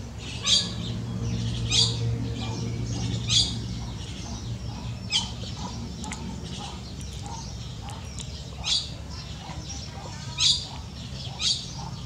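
Baya weavers calling at their hanging nests: seven loud, short, sharp chirps at uneven intervals over softer chattering.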